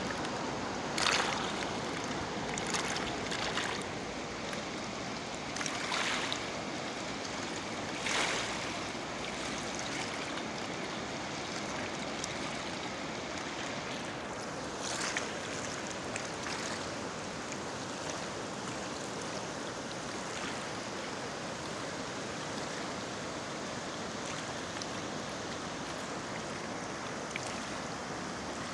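Swat River in flood: a steady, heavy rush of fast-flowing water, with a few brief louder splashing surges in the first half.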